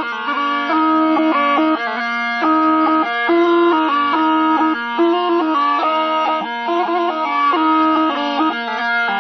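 Tarpa, the Warli tribal gourd trumpet, playing a melody of short held notes that step up and down over a steady drone.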